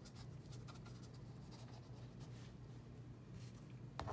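Paintbrush strokes dragging paint across canvas, a faint repeated scratchy brushing from a slightly dry brush, over a steady low hum. A small click near the end.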